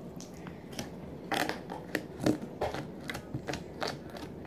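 Clear-glue slime being squeezed and pressed by hand into a small plastic cup, giving a run of irregular small clicks and pops.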